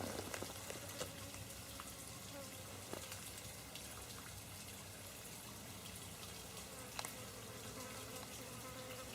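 Bees and blowflies buzzing faintly around a dug-up, exposed beehive; the buzz wavers in pitch and comes and goes as insects fly near.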